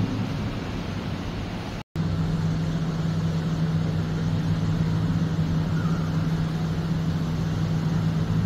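Steady low mechanical hum with a constant low drone. It cuts out completely for an instant about two seconds in, then carries on with a clearer steady tone.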